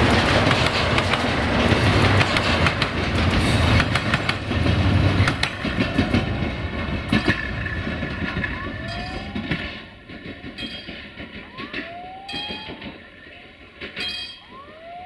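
Container freight train wagons rolling past over jointed track, wheels clicking over the rail joints, the noise fading as the end of the train moves away. Near the end, short rising squeals come about once a second from wheels on the curve.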